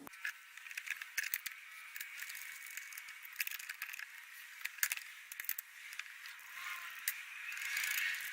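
Irregular light clicks and rattles of small hard objects, over a steady hiss that grows louder near the end.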